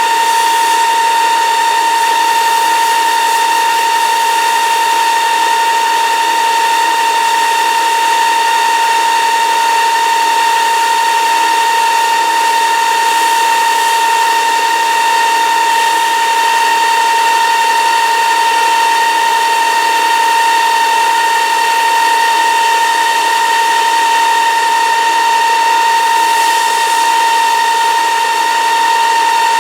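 Milling machine with a 3/4-inch high-speed steel end mill running steadily while hollowing out a metal block: a constant high-pitched whine with several overtones.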